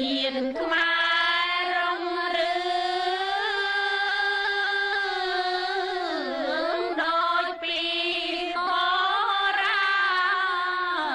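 Khmer song: one voice sings slow, long-held lines with a wavering vibrato and sliding pitch, over musical accompaniment.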